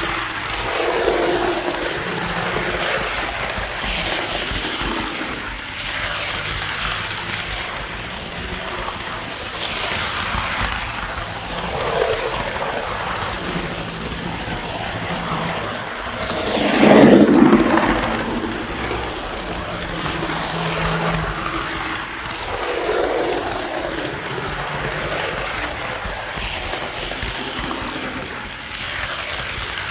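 Model train running along its track, heard from a car of the train itself: a steady rumble and clatter of wheels and motor, rising in several swells, the loudest about 17 seconds in.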